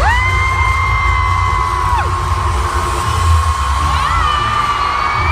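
Loud live concert music: long held notes that swoop up into pitch, over a heavy bass, with the crowd whooping.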